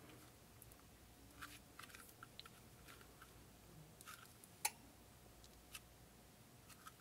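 Near silence with a few faint, scattered clicks and taps from the pistol being handled, the loudest a little past the middle.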